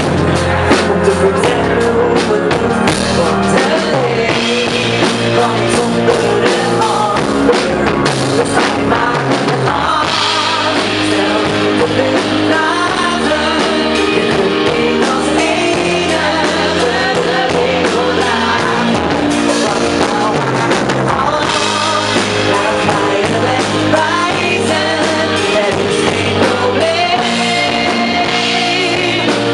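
Live band playing a pop-rock song with drums, a voice singing over it.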